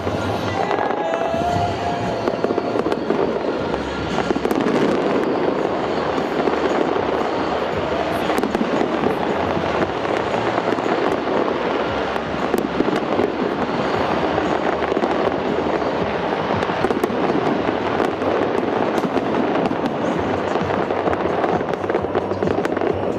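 A big fireworks display going off nonstop, a dense run of crackling and sharp pops, over a music soundtrack.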